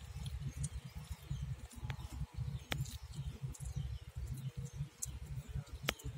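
Hands squeezing and rubbing wet masala paste into a whole raw chicken, with soft squelching and a few sharp wet clicks, over a low uneven rumble.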